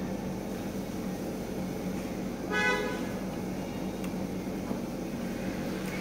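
A vehicle horn gives one short toot about two and a half seconds in, over a steady low background hum.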